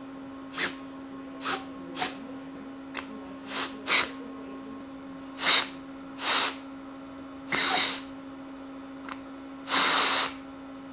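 Short bursts of pressurised air hissing through a 3D-printed valve block and cylinder as the piston is driven in and out: about nine puffs, the last two longer.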